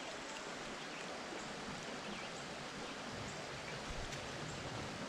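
Steady rushing hiss of flowing creek water.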